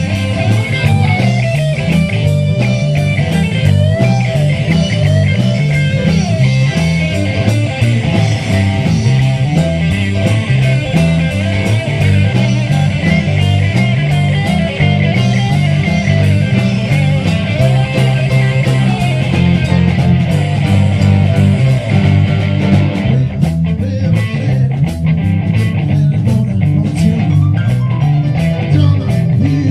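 Rock music with electric guitar over a steady stepping bass line; from about two-thirds of the way in, the guitar thins out and drum hits come to the front.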